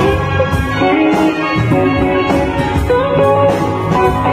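Live band music led by an electric guitar, an Epiphone SG played through a Zoom G1X effects pedal, playing a melodic line with bent notes over drums keeping a steady beat and a bass.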